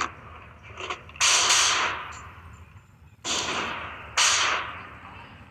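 Single gunshots from a carbine on a covered range: three sharp reports about a second, three seconds and four seconds in, each with a ringing decay, after a couple of fainter cracks at the start.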